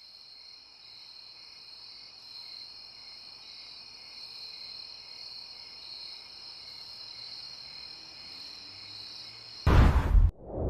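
Crickets chirping steadily in the night. Near the end a sudden loud whoosh sound effect cuts in over them.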